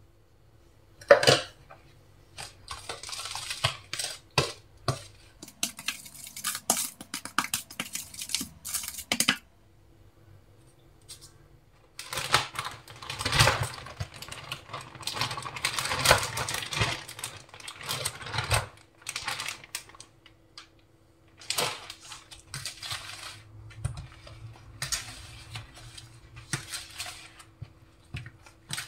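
A spoon stirs and scrapes a dry flour-and-spice mix in a bowl, clicking irregularly against its side. Raw fish pieces are tipped in and turned over in the coating, with a faint steady hum underneath.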